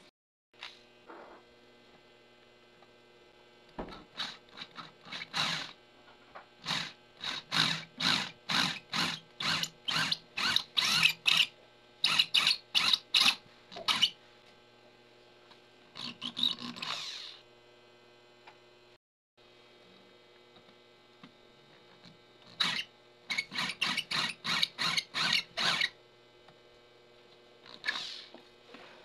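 Homemade 24-volt geared mini drill press running, its step drill bit cutting into a metal washer: a steady motor hum under runs of short, sharp cutting bursts, about two or three a second, as the bit is pressed into the metal again and again.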